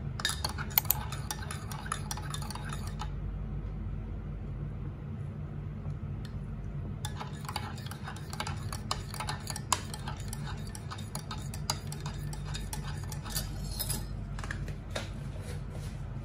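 Metal spoon stirring a drink in a ceramic mug, clinking quickly and repeatedly against the sides. The clinking stops for about four seconds near the start, then resumes.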